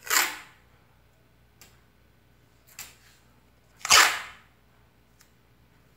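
Paper masking tape being pulled off the roll in two short rasping rips, one at the start and one about four seconds in, with a few faint ticks between.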